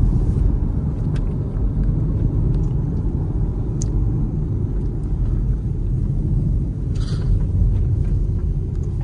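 Steady low rumble of engine and tyre noise heard inside the cabin of an MG Hector SUV driving along a road. A brief rustle comes about seven seconds in.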